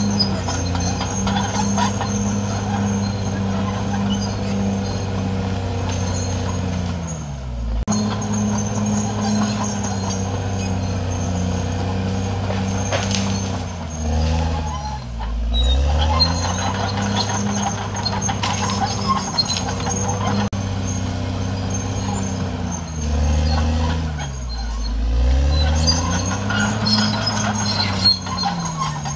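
CAT D6R XL crawler dozer's diesel engine running under heavy load, its pitch sagging and then recovering several times as it lugs down pushing through trees. Scattered cracking and clanking of breaking brush and steel tracks runs over the engine sound.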